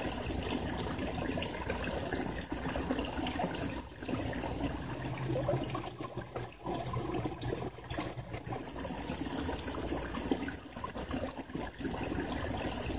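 Backyard pond waterfall: water spilling steadily down a rock cascade and splashing into the pond, heard as an even rushing, recorded through a phone's microphone.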